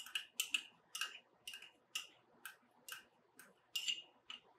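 A metal spoon scraping and tapping against the inside of a small ceramic ramekin as diced onion is spooned out into a mixing bowl: a steady series of light clicks, about two or three a second.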